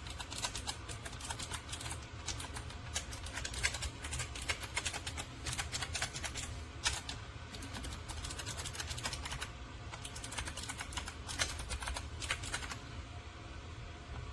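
Typing on a Logitech G915 X low-profile mechanical keyboard: a fast, uneven run of key clicks, thinning out near the end, over a low steady hum.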